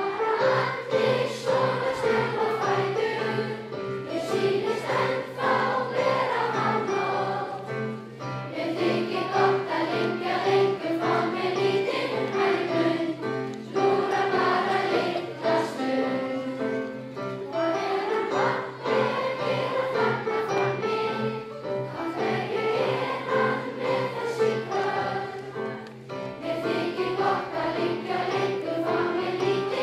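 A large crowd of schoolchildren singing a song together in unison in a big hall, with a keyboard playing along underneath.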